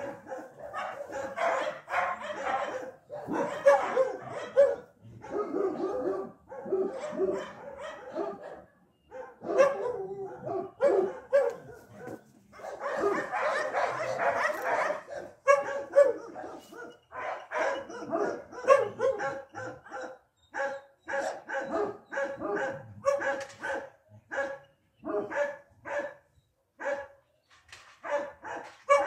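Dog barking over and over: in the first half the barks run close together, and from a little past halfway they come as separate short barks about once or twice a second.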